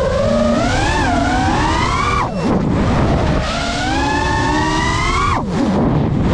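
FPV quadcopter's brushless motors and propellers whining, heard from the onboard GoPro, the pitch rising and falling with the throttle. About two and a quarter seconds in, and again about five and a half seconds in, the pitch drops steeply and climbs back as the throttle is cut and punched again.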